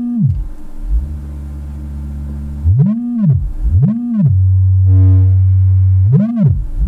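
Low sine-wave test tones from a small bench test speaker driven by the freshly repaired Rockford Fosgate T1000-4ad amplifier's front-left channel. The tones are held steady and stepped in pitch, then swept up and down about once a second. The channel is passing audio after the repair, and the sound is roughened by the microphone clipping.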